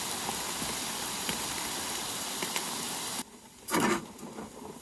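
Heavy rain falling steadily, an even hiss that cuts off suddenly a little past three seconds in. Near the end comes a brief loud rush of noise.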